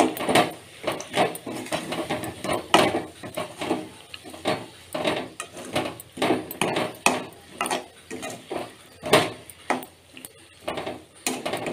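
Metal spatula scraping and knocking against a metal kadai while stirring grated raw mango sautéing in oil, in repeated irregular strokes about two to three a second.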